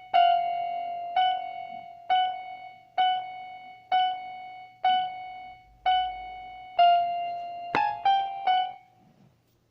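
Electronic keyboard with a piano-like voice playing the same single note about once a second, eight times, then three quicker notes stepping down in pitch before it stops.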